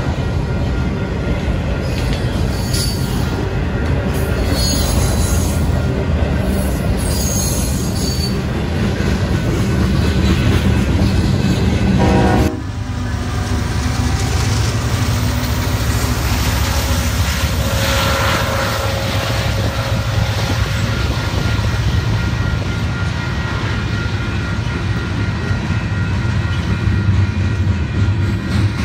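Freight train rolling past close by, with a steady rumble and clatter of car wheels on the rails. About twelve seconds in, the sound cuts abruptly to a second spot, where a diesel locomotive and more freight cars roll by.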